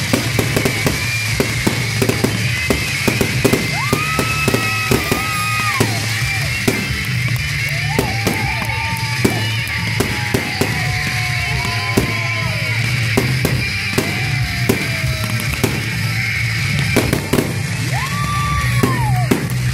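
Rock music with drums plays while a fireworks barrage goes off, with many sharp bangs and crackles of aerial shells bursting throughout.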